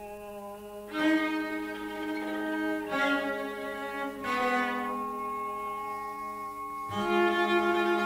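Chamber octet of clarinet, bassoon, horn, string quartet and double bass playing a slow passage, bowed strings to the fore: a steady low note is held while sustained higher notes enter one after another, about one, three, four and seven seconds in.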